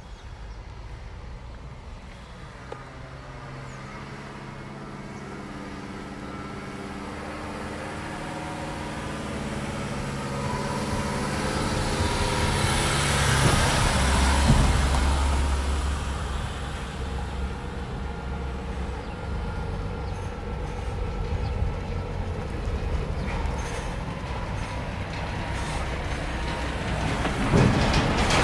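Diesel articulated lorry approaching at low speed, its engine hum growing steadily louder. It passes close by, with a deeper rumble about halfway through and a louder rush of the flatbed trailer rolling past near the end.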